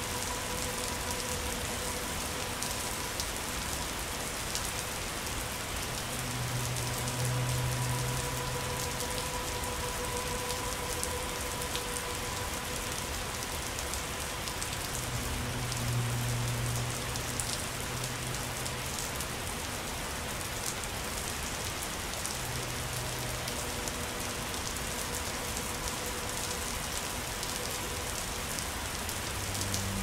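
Steady rain falling, a dense, even hiss of drops that holds throughout. A low rumble swells up briefly a few times beneath it.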